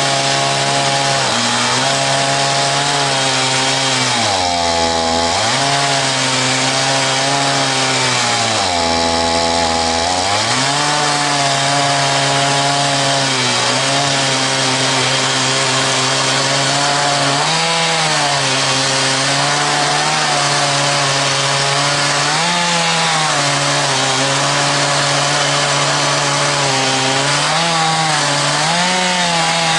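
Chainsaw in an Alaskan chainsaw mill running under load, ripping a log lengthwise into one-inch boards. Its engine pitch dips deeply twice, about four and nine seconds in, then holds fairly steady with small wavers.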